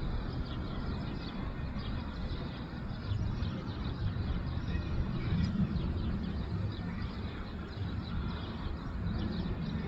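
Steady low rumble of a distant Boeing 777's jet engines on approach, swelling slightly a few seconds in, with many short faint bird chirps above it.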